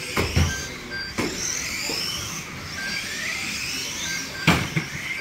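Motors of radio-controlled model stock cars whining, rising and falling in pitch as the cars speed up and slow down round the oval. Several sharp knocks of impacts cut in, the loudest about four and a half seconds in.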